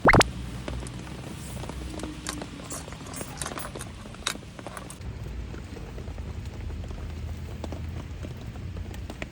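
Steady rain pattering, with many scattered drops ticking; a brief loud sound right at the start.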